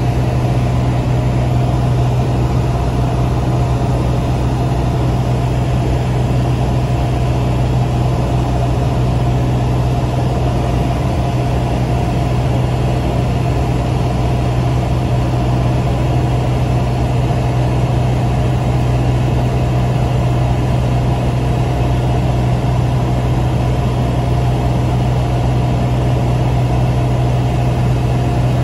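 Light aircraft engine droning at a constant, even pitch, heard from inside the cabin.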